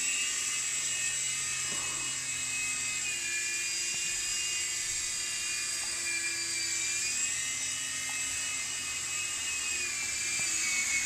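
Blade mCX micro RC helicopter in flight: the small electric motors and coaxial rotors make a steady high-pitched whine, its pitch wavering slightly with throttle and sagging near the end as it comes down to land.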